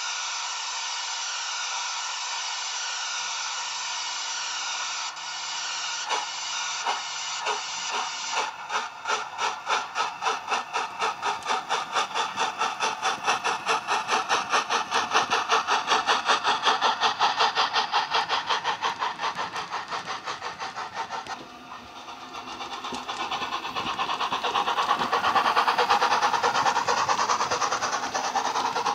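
Hornby A3 Flying Scotsman model with an SWD U-Drive steam sound file playing through its tender speaker: a steady steam hiss while it stands, then exhaust chuffs that begin slowly about six seconds in and quicken as the locomotive pulls away. Near the end the chuffing swells and runs together as the train passes close.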